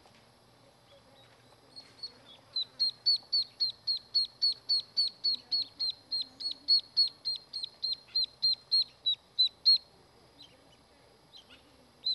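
Mallard ducklings peeping: a fast, even run of high, down-slurred peeps, about four a second. They begin a couple of seconds in, break off briefly near the end, and start again.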